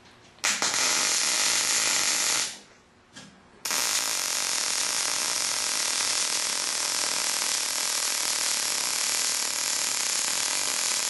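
MIG welding arc at about 19 volts on eighth-inch steel plate, a steady hiss that runs for about two seconds, breaks off, and starts again about a second later for a longer, even bead. This voltage is about right for the wire feed, giving a smooth arc and good penetration.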